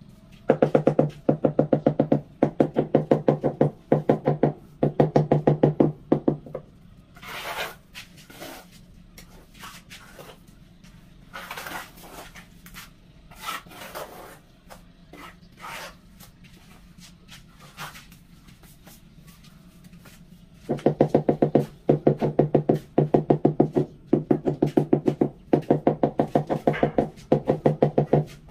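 A 40 by 40 ceramic floor tile tapped quickly with a trowel handle to bed it into mortar: fast knocks with a ringing tone, in runs of about a second, at the start and again for the last third. In between, a few scrapes of the trowel on mortar.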